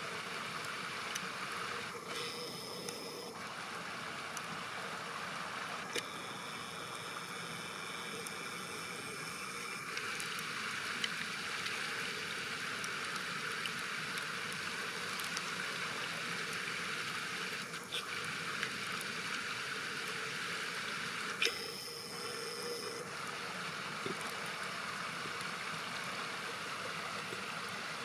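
Steady rush of flowing river water. Three times it is joined by a short whir of the camera's zoom motor, the longest lasting about four seconds.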